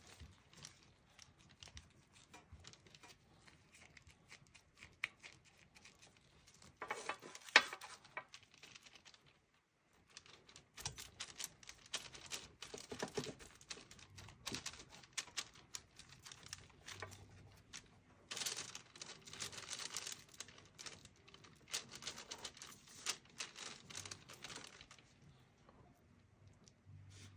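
Light crinkling, tapping and rustling from hands dabbing a sponge over a silicone doll lying on paper and plastic. There is one sharper click a few seconds in and a brief near-silent pause about ten seconds in.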